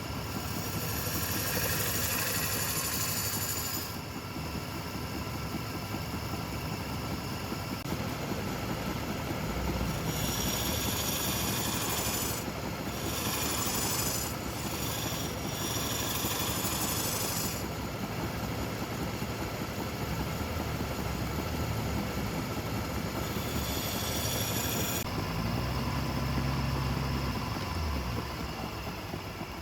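Wood lathe motor running steadily, with stretches of high hissing as the spinning wood is worked, about four seconds at first, again from about ten to seventeen seconds in, and briefly near the end.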